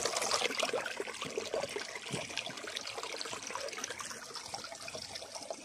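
Water trickling, a steady hiss dotted with small clicks and ticks, slowly growing fainter.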